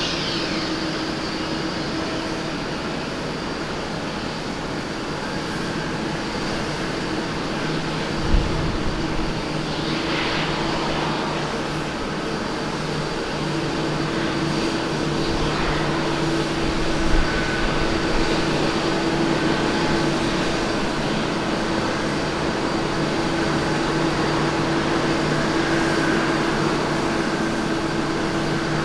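Airbus A330-300 twin-engine jet landing: steady engine noise with a held hum and whine, getting a little louder in the second half as it touches down and rolls out. Two brief low thumps, about 8 seconds in and about 17 seconds in.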